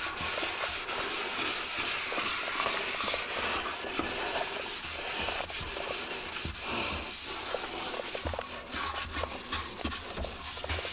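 A Scotch-Brite pad scrubbing a porcelain toilet bowl with Bar Keepers Friend cleanser, a steady scratchy rubbing. The scrubbing is working out scratch marks that a toilet auger left in the porcelain.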